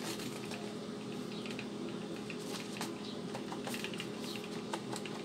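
Light clicks and small squeaks of a Black & Decker angle grinder's plastic housing being handled and turned over in the hands, over a steady low hum.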